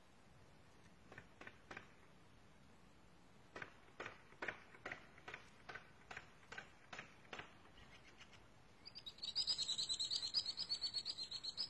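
Songbird calling: short chirps spaced about two or three a second, then a loud, fast, high trill from about nine seconds in.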